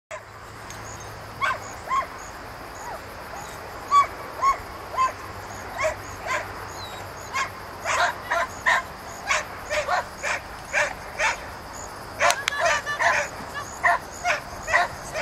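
A dog barking over and over: a few separate barks at first, then about two barks a second from about halfway through.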